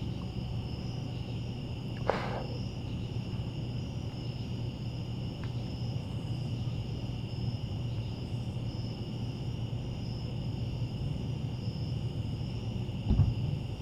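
Night insects chirping in a steady chorus, high-pitched and unbroken, over a low steady hum. A brief knock about two seconds in and a low thump near the end.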